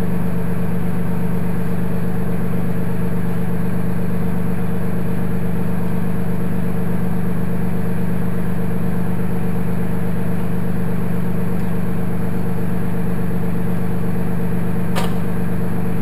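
Mahindra 1526 tractor's diesel engine idling steadily, with a single sharp click near the end.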